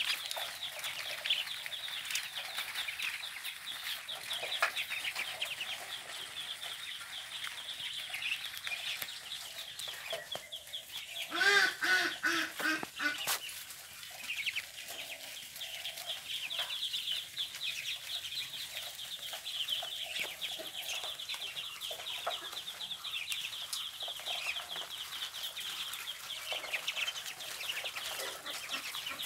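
A flock of Muscovy ducklings peeping continuously, many high, thin calls overlapping. About halfway through, one louder, lower call stands out for a second or two.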